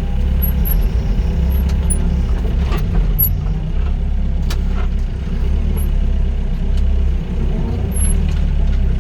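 Doosan DX55 mini excavator's diesel engine running steadily while working, its level dipping briefly a couple of times, with a few short knocks.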